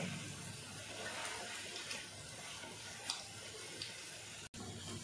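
Bottle-gourd vadas shallow-frying in hot oil in a pan, a steady sizzle, with two light taps of a wooden spatula about three seconds in.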